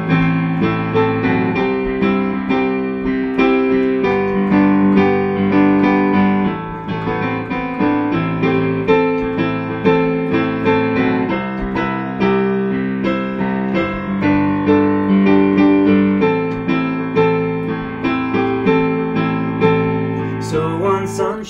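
Yamaha digital piano playing an instrumental interlude: sustained chords with notes struck in an even, steady rhythm.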